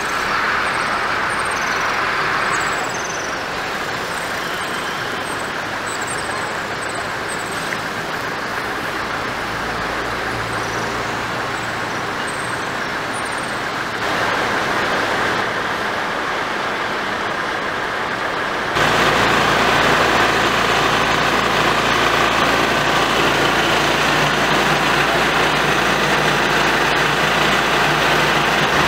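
Floodwater rushing through a swollen drainage channel: a steady noisy rush, with high bird chirps over it in the first several seconds. The rush becomes louder and deeper about two-thirds of the way through.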